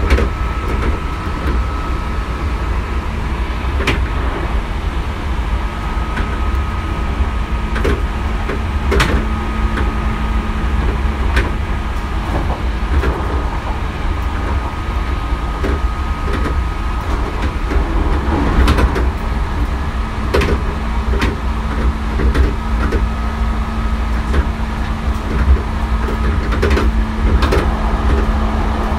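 Hankyu 3300 series electric train running at a steady speed, heard from inside the car: a constant rumble of wheels on rail with a steady hum. Sharp clicks and knocks from the track come every few seconds.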